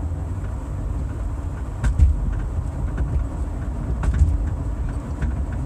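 Steady road rumble inside a 1997 Lexus ES300 while driving, with a light rattle heard as scattered clicks, the loudest about two seconds in and a few more around four seconds. The owner has already replaced the ball joints and sway bar links and suspects a strut or strut mount.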